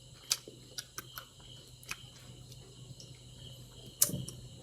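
Scattered soft clicks and smacks of someone chewing a mouthful of chicken, over a steady, high chirping of crickets.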